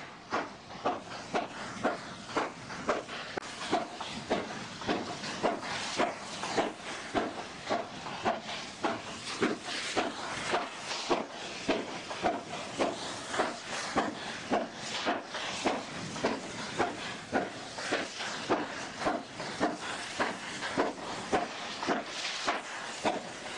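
Steam locomotive exhaust chuffing at a steady pace, about two beats a second, over a constant steam hiss.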